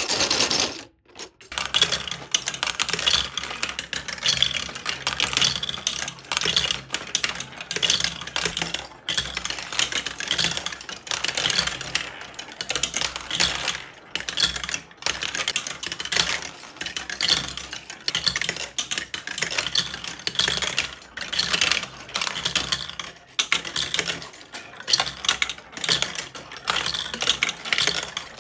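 Glass marbles rolling and clattering through a plastic building-brick marble run, a dense, continuous rattle of small clicks that swells and eases every second or two.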